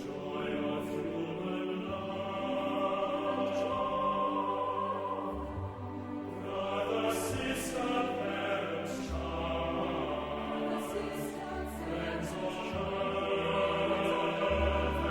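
Choral music: a choir singing sustained chords with instrumental accompaniment.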